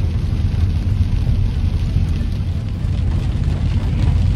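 A car driving on a wet road in heavy rain, heard from inside the cabin: a steady low rumble of engine and tyres.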